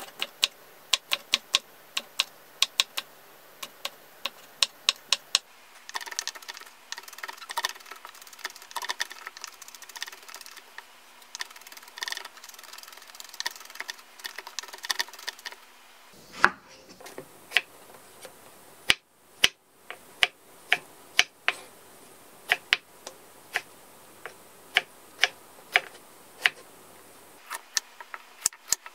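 Kitchen knife tapping on a wooden cutting board while slicing green chillies, sharp knocks at a steady pace. In the middle the taps come faster and denser as the chillies are minced, and near the end the knife cuts a carrot.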